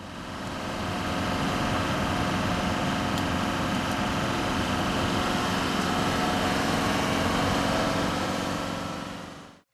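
Car driving along a road, heard from inside the moving car: steady engine and road noise that fades in at the start and fades out near the end.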